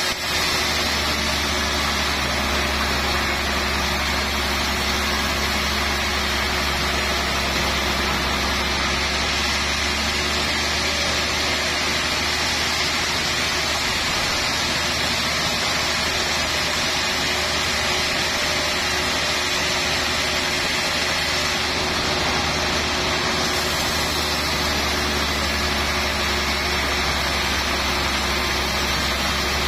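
A large band saw mill running steadily as its blade cuts through a trembesi (rain tree) log: an even, continuous saw and machinery noise with a low motor hum under it.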